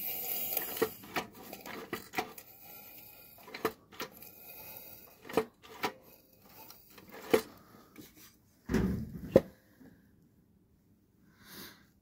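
Small flathead engine parts being handled on a workbench: scattered metal clicks and knocks, with a louder clatter about nine seconds in.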